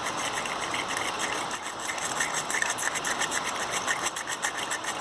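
A car battery post or terminal clamp being scrubbed with a hand battery-terminal cleaning tool: a rapid, rhythmic scraping of bristles or abrasive on lead, working off the corrosion for a better contact.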